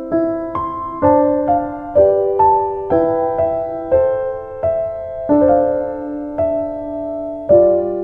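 Background music: a slow, gentle piano melody of single notes and chords, each struck and left to fade.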